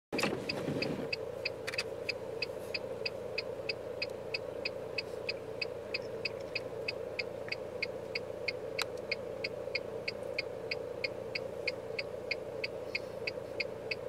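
Steady rush of a distant waterfall after rain, with a short high chirp repeating evenly about three times a second above it.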